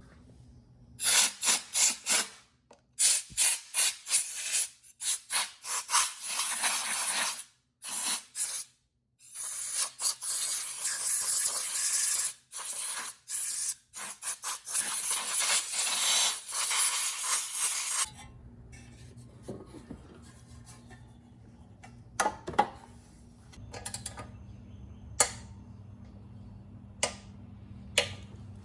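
Scraping on the Briggs & Stratton engine, then long hissing blasts of compressed air blowing it out. After that come a few light clicks over a low steady hum.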